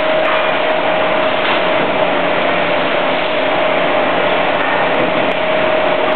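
Machinery on a crystalline photovoltaic module production line running steadily, a constant noise with one steady whining tone.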